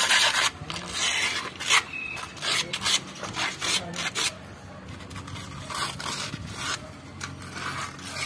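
Fine wet sandpaper rubbing inside the bore of an Isuzu Elf drum-brake wheel cylinder in quick, uneven strokes: the bore being smoothed for new wheel cups.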